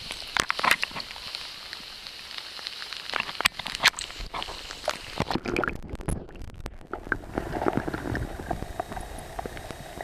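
Wet handling noise and splashes close to the microphone, sharp clicks and knocks, then about six seconds in the sound turns muffled as the camera goes under the river: the low, rushing sound of the current heard underwater.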